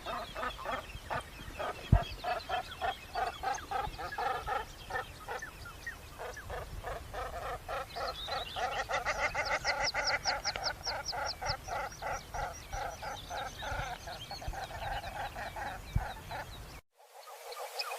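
Several ducks of the kind known as 'Chinese duck' or 'Umm Jamel' calling with rapid, repeated, overlapping notes at a few calls a second. The calls cut out briefly near the end and then return louder.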